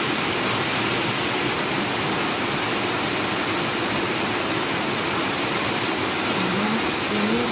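Heavy rain falling steadily: an even, dense hiss with no let-up.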